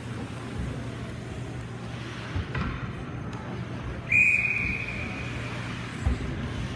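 A referee's whistle blown once about four seconds in: a single sharp high note that starts suddenly and fades over about a second and a half. Under it, a steady low hum and a few scattered knocks.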